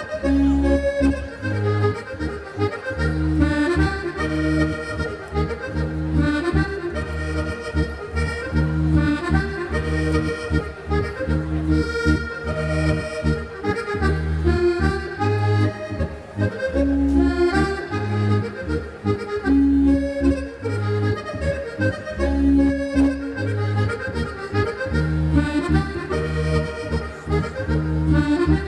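Diatonic button accordion (Sardinian organetto) playing a ballu sardu dance tune: a quick melody over a steady, rhythmic alternating bass.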